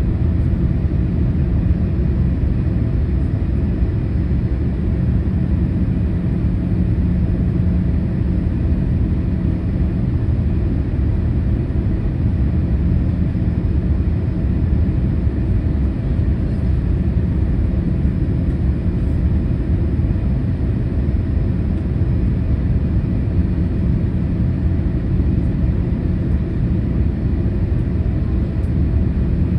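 Steady cabin noise of a Boeing 787-8 airliner in flight on its approach: an even low rumble of engines and airflow, with a faint steady hum running through it.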